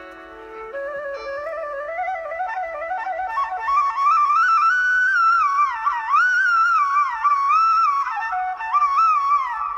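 Background instrumental music: a single melody line that climbs in pitch over the first few seconds, then winds up and down with slides between notes.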